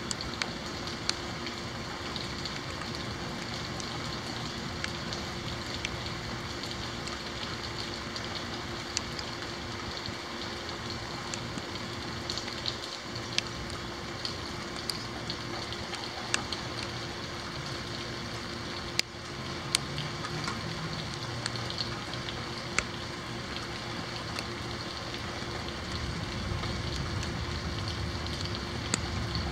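Steady rain falling, with scattered sharp ticks of drops striking a hard surface close by. A low rumble swells near the end.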